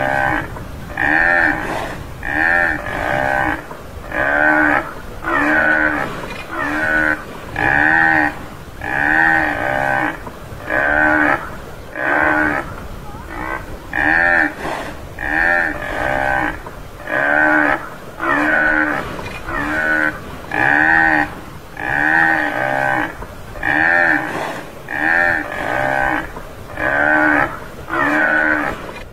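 Tamaraw (Mindoro dwarf buffalo) calling: short calls repeated about once a second, each rising and then falling in pitch.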